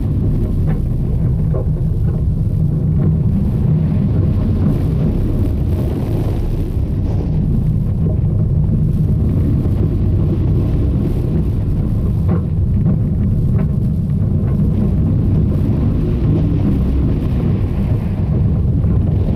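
B&M launched wing coaster train running through its layout: a steady, loud rumble with wind rushing over the on-ride microphone.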